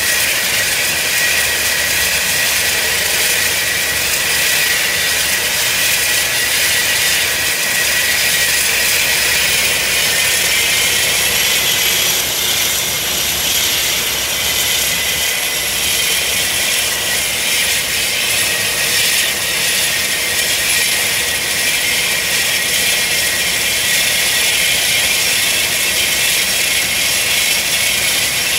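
Lancair's 750 hp turboprop engine running on the ground: a steady high turbine whine over the propeller's noise. The whine rises a little in pitch about ten seconds in.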